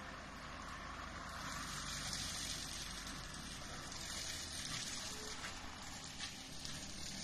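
LiuGong mini excavator's engine running under load while its Brush Wolf 4800X hydraulic brush-cutter head spins and shreds dense brush and saplings, a steady hissing shredding noise over the engine drone that swells slightly now and then.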